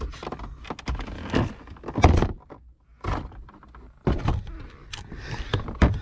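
Plastic dash trim on a Jeep Wrangler JK's center stack knocking, clicking and rattling as it is tugged and pried by hand. There is a louder thump about two seconds in and another near the end.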